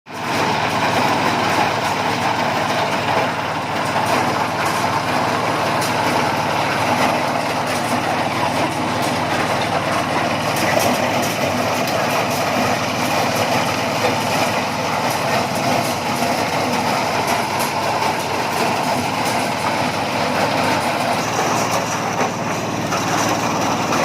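Husked-corn sheller (maize thresher) running steadily, its motor and threshing drum making a constant mechanical din with a dense clatter through it.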